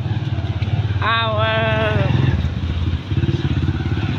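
A motorcycle engine running close by, a steady pulsing rumble. About a second in, a drawn-out voice call falls in pitch.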